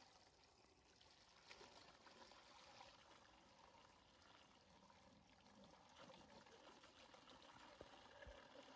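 Water from a garden hose running into a plastic tub and splashing, faint and steady.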